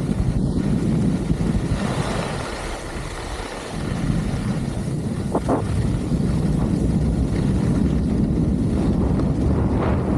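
Wind rushing and buffeting over the camera's microphone during a downhill ski run, a steady loud rumble.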